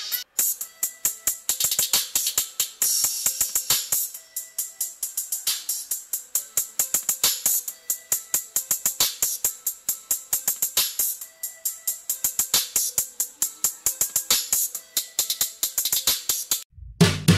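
Music played through a small full-range speaker driven by a one-transistor Bluetooth amplifier, mostly a rapid, crisp percussion beat. It sounds thin and trebly, with almost no bass, and cuts off shortly before the end.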